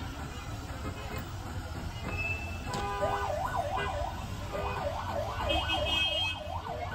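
Electronic siren in street traffic: a short steady tone, then a yelping pitch that sweeps up and down about three times a second, starting about three seconds in and stopping just before the end, over the low rumble of traffic.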